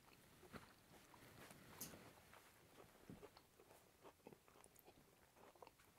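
Near silence with faint, scattered chewing and mouth sounds from people eating bites of pie, a few soft clicks spread through it, slightly louder about two seconds in.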